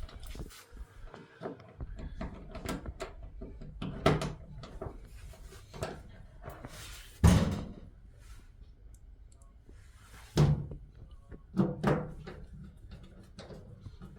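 A series of loud knocks and thuds, about five, a few seconds apart, the strongest about halfway through, with quieter handling and rattling noises between them.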